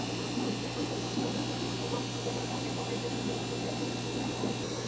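Steady hum of an aquarium air pump, with the bubbling water noise of the air-driven sponge filters in the tanks.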